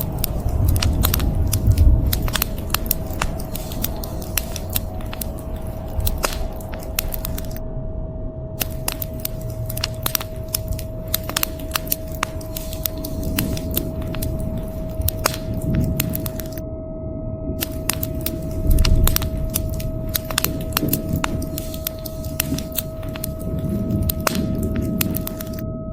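Wood fire crackling with many sharp pops, over a steady hiss of rain. A low rumble of thunder swells about two seconds in and again around nineteen seconds, and a steady held tone runs underneath.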